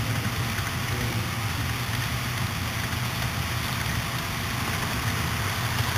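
HO scale model freight train of trailers on flatcars rolling past, its wheels on the track making a steady rushing noise.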